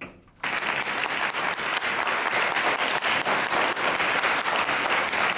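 Audience applauding, starting suddenly about half a second in and keeping up as a dense, steady clatter of clapping.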